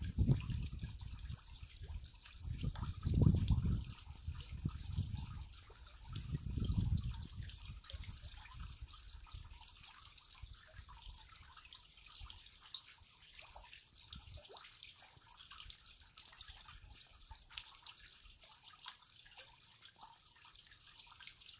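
Meltwater from an overhanging snow pack dripping into a shallow pool: many small drops plopping on the water, irregular and continuous. Low rumbles swell up a few times in the first seven seconds, loudest about three and seven seconds in.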